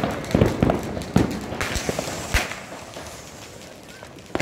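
Firecrackers and fireworks going off in the street: a scattered string of sharp bangs over the first two and a half seconds, then quieter until one more loud bang at the very end.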